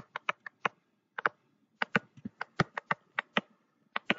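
An irregular run of well over a dozen short, sharp clicks and taps, a few close together, then gaps, as handwriting strokes are put down on a digital whiteboard.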